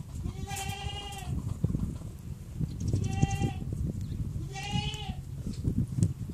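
An animal calling three times: short, wavering pitched cries, each well under a second, over a constant low rumble.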